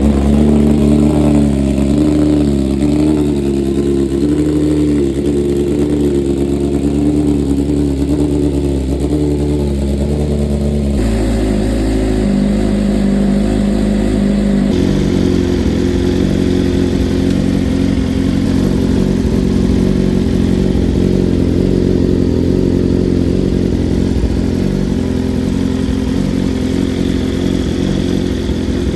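2024 BMW S1000RR inline-four running at idle through a freshly installed Akrapovic titanium full exhaust, just after its first start on the new headers. The idle wavers for the first ten seconds or so, then changes character abruptly twice and settles steady.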